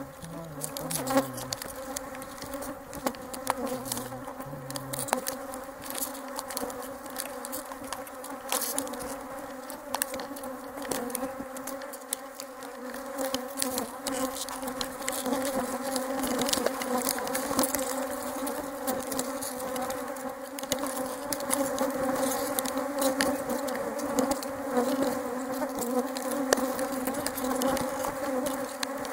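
Many honeybees buzzing in flight, a steady hum that grows louder about halfway through, with scattered sharp clicks over it.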